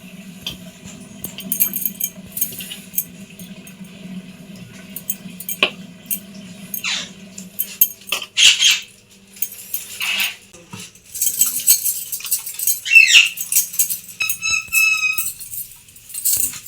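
Intermittent scraping and rustling handling noises with scattered clicks over a steady low hum. A short, high-pitched animal cry comes near the end.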